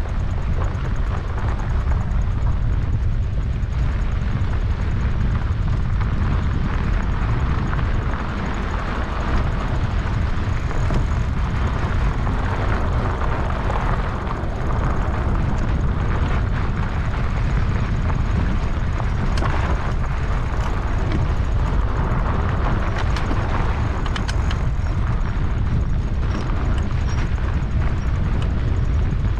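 Riding noise from an e-bike on a dirt road: wind rumbling steadily on the microphone, with tyre noise on the dirt and a few small ticks and rattles in the second half.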